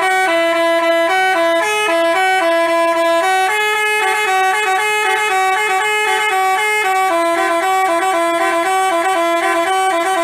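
Basuri telolet musical bus horn playing a tune of short stepped notes, two pitches sounding together.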